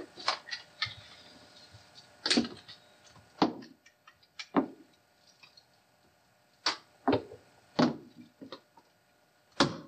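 Handling noise from a camcorder power cord and plug being fetched and worked by hand: a series of sharp knocks and clunks, about ten in all, irregularly spaced, with faint rustling between.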